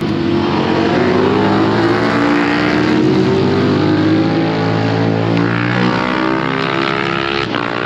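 Racing motorcycle engines running at high revs, a dense engine note that shifts slightly in pitch, cutting off sharply near the end.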